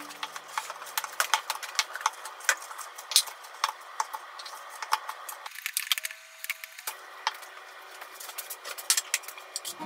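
A rice paddle stirring and scraping rice around a stainless steel bowl: many irregular light clicks and scrapes against the metal as the rice is mixed.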